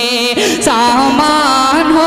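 A man singing a naat unaccompanied, drawing a word out into a long melismatic line with vibrato and sliding turns; a new phrase begins about half a second in.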